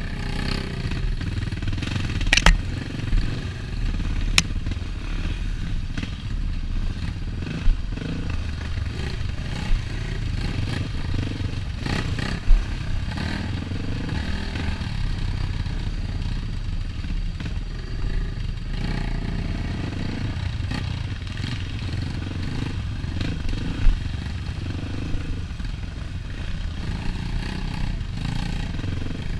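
Dirt bike engine running under way on a rough trail, the pitch rising and falling with the throttle. Several sharp knocks and rattles as it goes over bumps.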